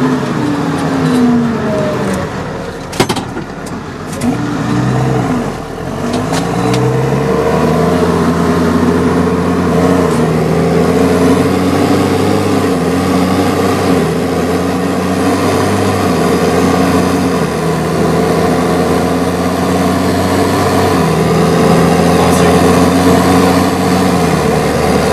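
A New Holland tractor's diesel engine, heard from inside the cab. Its revs dip and rise over the first several seconds, then it runs fairly steadily with small rises and falls.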